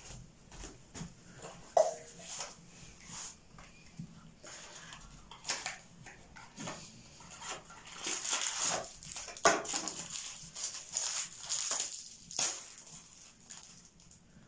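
Wood fire crackling and popping under a steel saucepan of water. From about 8 s to 12 s, rustling and small knocks as a hand handles a small packet or bottle by the stove.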